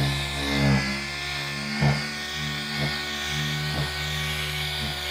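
Air-powered dual-action sander running with a 1500-grit disc, dry-sanding a plastic headlight lens; its steady whine swells and eases as it is pressed on and moved across the lens, with a few brief knocks.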